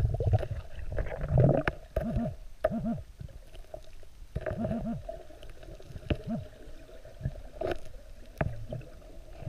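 Underwater bubbling and gurgling from a diver, in short bursts with a louder rush about a second in, over a faint steady hum, as heard through an underwater camera.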